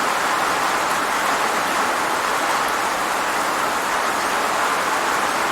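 Steady rain falling, an even hiss of many drops with no single drop or thunder standing out.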